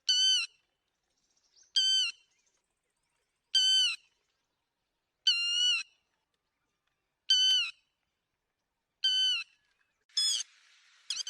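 Lapwing calls: six single, wavering calls about every two seconds, then near the end a fast run of short repeated notes.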